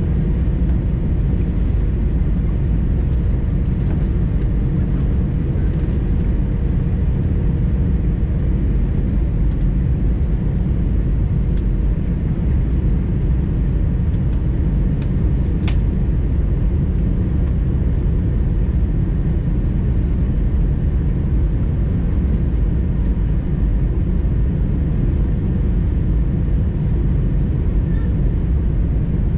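Steady in-flight cabin noise of an Airbus A319-100: a low, even rush of engines and airflow. Two faint clicks come near the middle.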